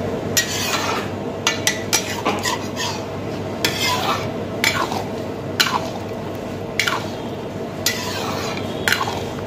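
A long metal ladle stirring and scraping thick korma gravy in a large steel kadai, a dozen or so irregular scrapes and knocks against the pan over a steady low hum.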